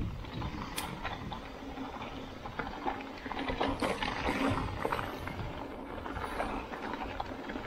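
Mountain bike riding down a rocky enduro trail: a steady rush of tyre and wind noise with many small knocks and rattles as the wheels run over stones.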